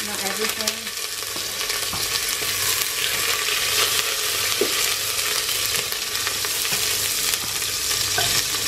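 Sliced red onion sizzling as it fries in hot sunflower oil in a stainless steel pot, stirred with a wooden spoon. The sizzle is a steady hiss throughout.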